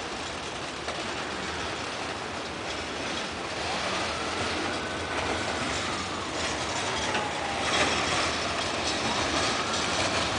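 Freight train rolling past close by: steel wheels rumble and clack over the rail joints, the clacks loudest about eight seconds in. A faint wheel squeal glides up and down in pitch from about four seconds in.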